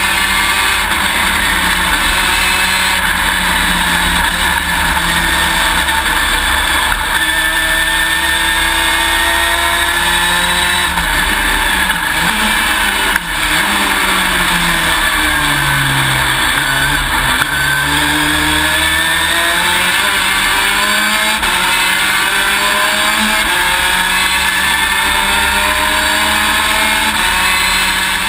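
A Top Race Junior car's V6 racing engine heard from inside the cockpit, loud throughout, its pitch climbing and dropping again and again as it is driven at race pace through the gears, with a deeper drop and climb about halfway through.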